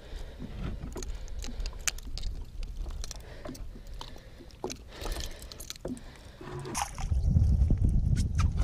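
Scattered light clicks and taps of fishing pliers and a lure's hooks while a northern pike is unhooked over a landing net. A heavier low rumble comes in near the end.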